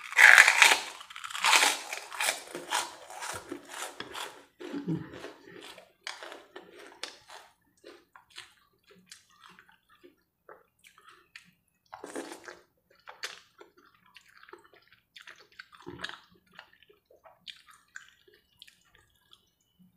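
A person biting into and crunching a puffed kerupuk cracker close to the microphone: a loud, dense run of crisp crackles over the first few seconds. After that come quieter, wet chewing sounds while eating noodles, with a couple of brief louder bursts later on.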